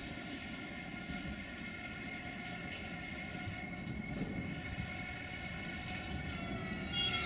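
Siemens EuroSprinter class 189 electric locomotive rolling slowly with its freight train: a steady low rumble of wheels on track with a steady whine from the locomotive. Near the end the wheels start to squeal in high-pitched tones.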